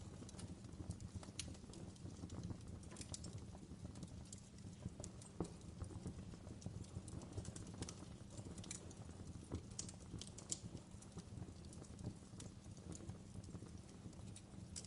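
Wood fire crackling: irregular sharp pops and snaps over a low, steady rumble of burning.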